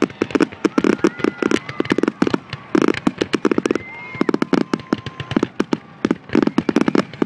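Fireworks finale: rapid volleys of aerial shell bangs and crackling, going off in dense clusters, with a few held whistling tones over them.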